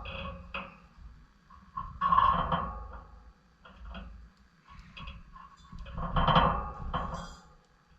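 Pet lovebirds chattering in short noisy bursts, loudest about two seconds and six seconds in, with light knocks and clicks between.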